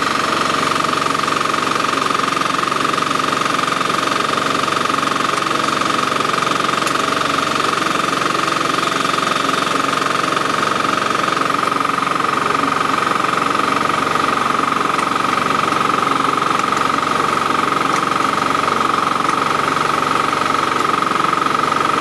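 Engine of a mini crawler air-blast power sprayer running steadily, with a steady high whine over it.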